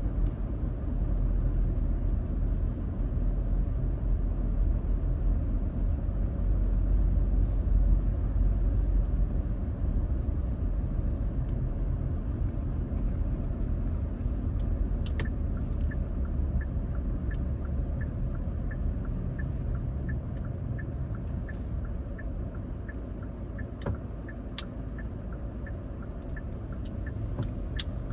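Low, steady rumble of a car's engine and tyres heard from inside the cabin while driving. From about halfway, a turn-signal indicator clicks steadily at about one and a half clicks a second.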